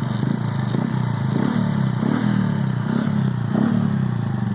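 Honda Pop 110's small single-cylinder four-stroke engine running, its pitch swelling up and down several times. It is being run to show a buzzing vibration that the owner traces to something loose inside the instrument panel.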